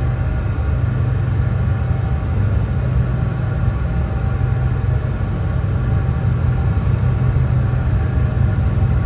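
Brown noise: a steady, even deep rumble with most of its energy in the low end and little hiss above.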